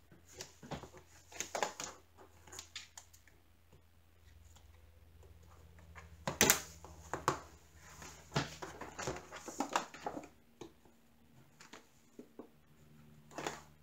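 Double-sided tape being pulled from its roll, snipped with scissors and pressed onto a plastic magnetic frame: scattered small clicks and rustles, the sharpest a single snip about six and a half seconds in.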